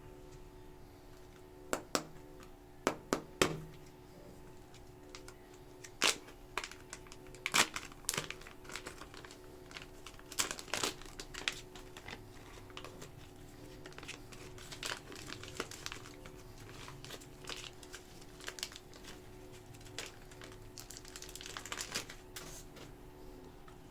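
Plastic clay packaging crinkling and crackling as it is unwrapped by hand, in irregular crackles that come thickest in the middle stretch.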